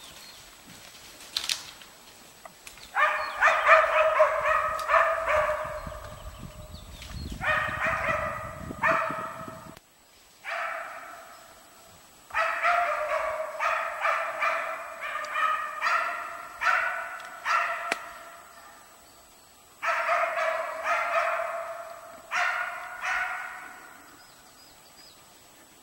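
West Siberian laika barking at a moose it is holding at bay, in strings of rapid barks a few seconds long with short pauses between.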